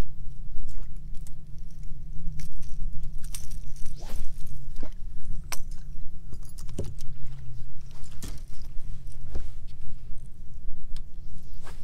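Scattered metal clicks and rattles of a topwater lure's treble hooks and fishing tackle being handled while a small fish is unhooked, over a steady low rumble.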